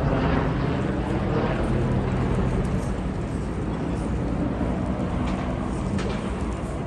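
Steady city traffic rumble, with a double-decker bus engine humming over it for the first two seconds or so.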